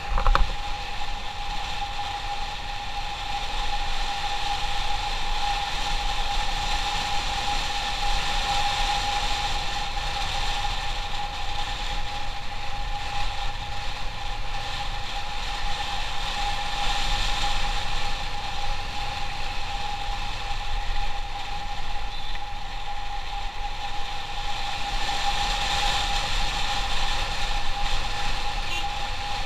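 Motorcycle engine running at a steady, unchanging speed while riding, with wind rumbling on the microphone. There is a short knock right at the start.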